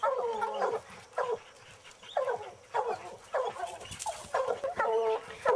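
Walker hounds baying: a quick string of short, pitched bawls, about two a second.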